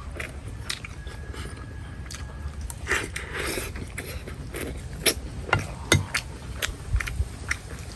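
Someone eating noodle soup: a metal spoon clicking against a ceramic bowl again and again, with chewing and a slurp about three seconds in.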